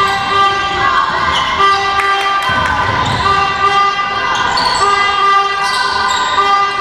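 Basketball bouncing on a wooden gym floor during play, a few hard thuds with the hall's echo. Under it runs a steady background of held pitched tones that change now and then, along with some indistinct voices.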